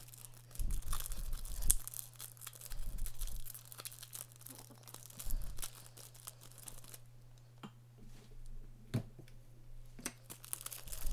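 Foil wrapper of an SP Game Used hockey card pack being torn open by hand: irregular crinkling and tearing with sharp crackles, busiest in the first few seconds, easing off after about seven seconds with one last sharp crackle.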